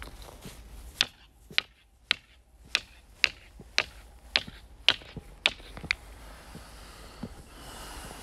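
A hand-held stone knocked against a stone block about ten times, roughly two sharp clacks a second, each with a short ring after it. The knocking is meant to set off the brick pagoda's echo, which is said to sound like frogs croaking.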